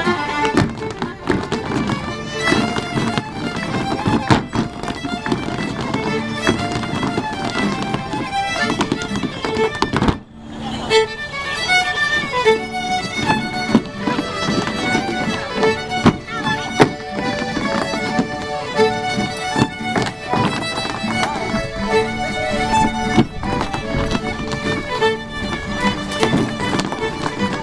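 A lively folk dance tune played on fiddle accompanies a rapper sword dance, with short sharp clicks from the dancers' hard-soled shoes stepping on the wooden dance board. The sound drops out for a moment about ten seconds in, then the tune carries on.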